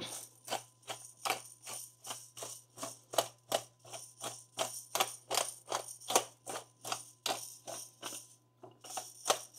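Black pepper being dispensed from its container over the food: a steady run of crisp rattling strokes, about three a second, with a short pause near the end.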